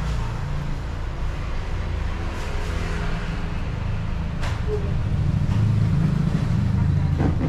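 A motor vehicle running: steady low engine and road rumble that grows louder about five seconds in, with a sharp click partway through.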